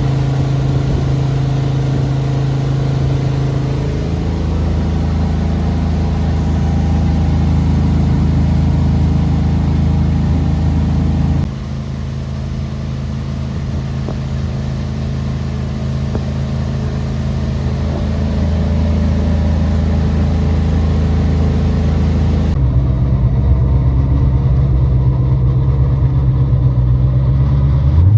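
Boat motor running steadily under way, its drone changing pitch and level abruptly three times as one clip cuts to the next.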